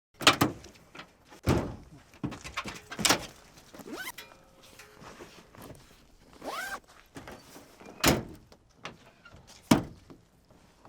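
A series of separate thuds and knocks, about five loud ones with lighter clicks between them, and a short rising squeak about six and a half seconds in.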